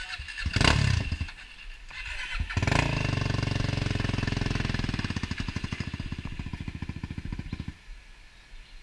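Off-road quad (ATV) engine close by: two loud revs in the first three seconds, then running with an even pulsing beat that slows and dies away about a second before the end.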